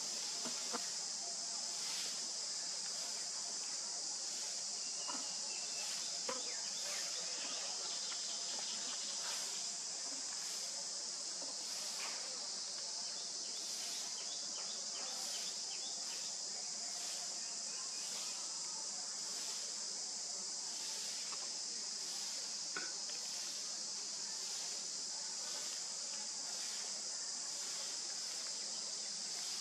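Steady high-pitched insect buzzing, pulsing faintly about once a second.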